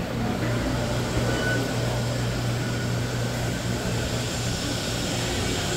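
A steady low mechanical hum under an even wash of background noise.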